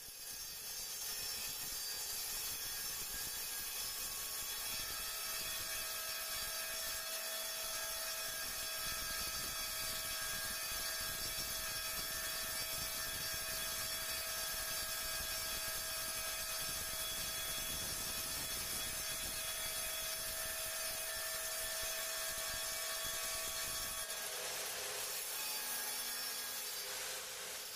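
Electric woodworking power tool running steadily on wood, with a constant high whine. About four seconds before the end the whine drops away and the sound turns noisier, then fades out.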